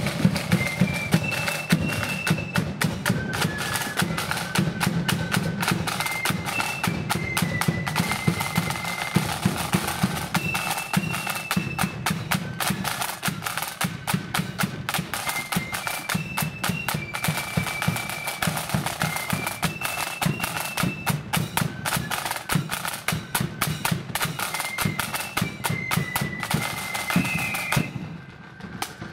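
A marching flute band playing a tune: flutes carry a high melody over rapid snare drumming and a bass drum beat. The music stops near the end.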